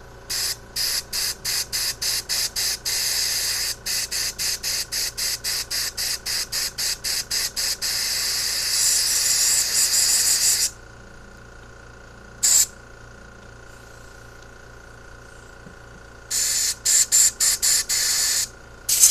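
Compressed-air blow gun hissing into the passages of a four-barrel carburetor, first in rapid short bursts about four a second, then in a steady blast of a couple of seconds, a single short blast, and another run of bursts near the end. The air is blown through to check the fuel passages and jets for a clog, and they prove unrestricted.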